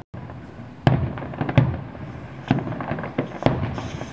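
Fireworks display: aerial shells bursting in a string of five or six sharp bangs, roughly a second apart, each trailing off in a short rumble.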